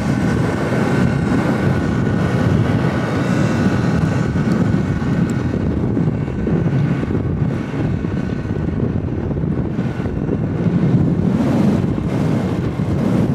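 Wind buffeting the handheld camera's microphone while riding downhill on a tandem bicycle, a loud, steady rush.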